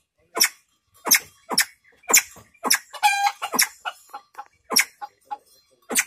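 Penned fowl giving a run of short, sharp clucks, about one or two a second, with one longer pitched call about three seconds in.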